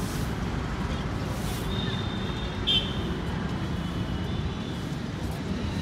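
Outdoor street ambience: a steady low traffic rumble with faint crowd voices, and a brief high thin tone about two to three seconds in.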